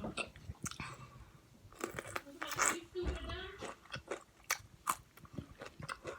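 Close-up chewing and crunching of crispy fried chicken, with short wet mouth clicks between bites. A brief voice sounds near the middle.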